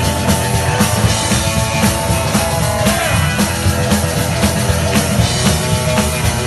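Rockabilly band playing live: electric guitar, strummed acoustic guitar and drum kit with a steady driving beat.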